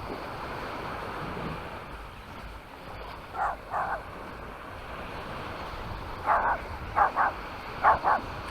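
A dog barking in quick pairs of short barks, starting about three seconds in and growing more frequent, over a steady wash of surf and wind.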